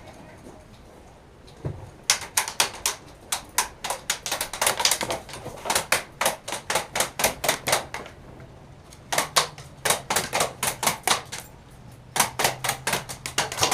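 Airsoft guns firing in three rapid strings of sharp clicking shots, each a few seconds long, with brief pauses about eight and eleven and a half seconds in.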